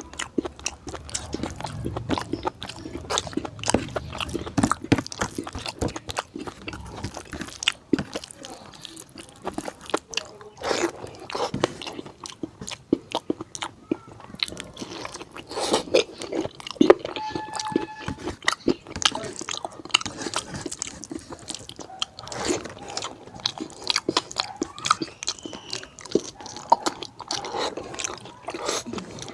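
Close-miked eating sounds of someone chewing fatty pork curry with rice: irregular wet chewing, lip smacks and small clicks, one after another.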